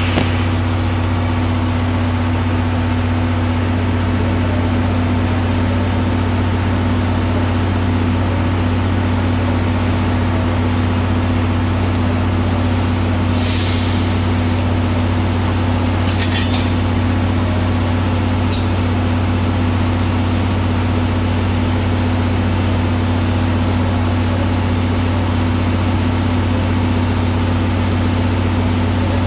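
A JNR Class DE10 diesel-hydraulic locomotive's V12 diesel engine idling with a steady low hum. About thirteen seconds in there is a short hiss of air, followed a few seconds later by brief metallic clanks and a sharp click.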